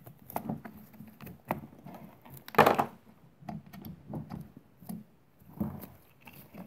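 Handling noise of a chainsaw carburetor being worked free from its throttle linkage and fuel tubes: scattered small clicks and knocks of metal and plastic parts, with one louder scrape or rustle just under three seconds in.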